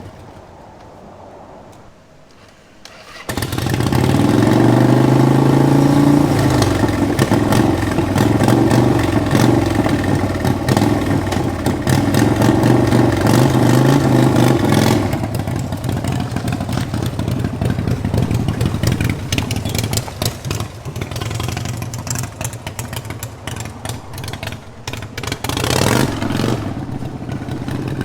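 Harley-Davidson 1300cc V-twin engine of a go-kart starting about three seconds in, then running loud and steady. From about fifteen seconds on it sounds rougher and more uneven, with many sharp crackles.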